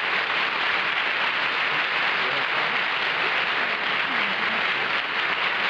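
Studio audience applauding steadily, with a few faint voices underneath.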